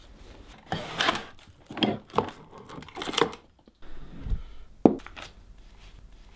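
Paper banknotes rustling and crinkling in several short bursts as they are handled and counted. A single sharp click follows about five seconds in.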